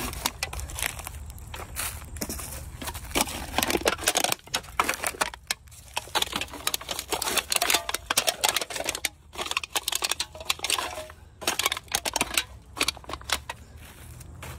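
Gloved hands rummaging through a pile of litter, with plastic bottles, wrappers and dry leaves rustling and crinkling as aluminum cans are picked out. Irregular crackles and clicks run throughout.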